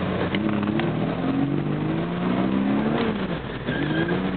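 Car engine heard from inside the cabin, revs climbing for about two seconds, falling sharply, then climbing again as the throttle is worked through a drift.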